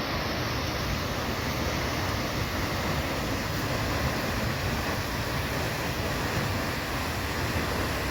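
Seljalandsfoss waterfall's steady rush of falling water, an even unbroken roar.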